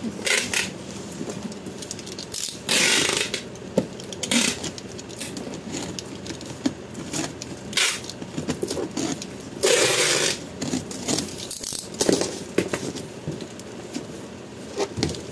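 Packing tape being cut and pulled off a cardboard parcel box, with several separate rasping rips, the longest about 3 and 10 seconds in, amid rustling of cardboard and plastic wrap.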